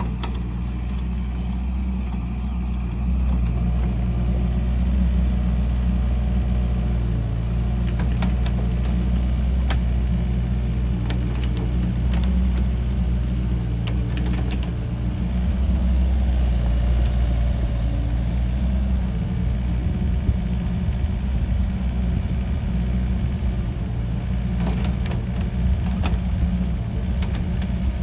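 Kobelco SK50 mini excavator's diesel engine running steadily with a deep, even drone, with a few short sharp knocks scattered through.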